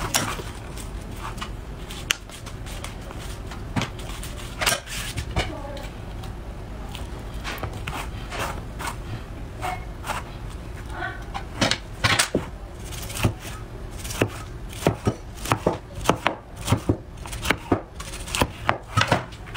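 Scattered knocks and clicks as a plastic sushi mold is handled and its lid pressed down, then a cleaver chopping through nori-wrapped sushi rice in the mold's slotted guide. The chopping is a run of sharp strikes that starts about halfway through and quickens to about two a second near the end.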